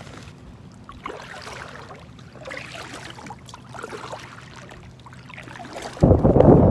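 Quiet water trickling and lapping around a drifting kayak, then a sudden loud buffeting of wind on the microphone about six seconds in.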